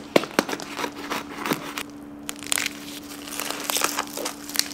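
A knife crunching through the crisp, lard-blistered crackling skin of a smoked whole suckling pig: a run of sharp cracks and crunches, with a short lull about two seconds in.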